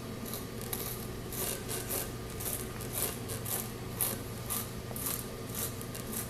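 Spiral reaming tool being twisted in and out of a nail hole in a tire, giving short rasping strokes about two a second over a steady low hum.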